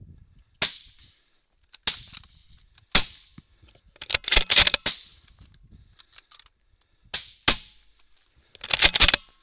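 A string of rifle shots at running coyotes, each a sharp crack with a short echo. Three single shots come about a second apart, then a quick run of cracks about four seconds in, two more shots close together, and another quick run near the end.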